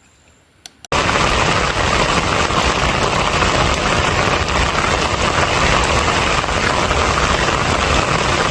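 Heavy rain pouring down in a loud, steady rush. It starts abruptly about a second in and cuts off suddenly at the end.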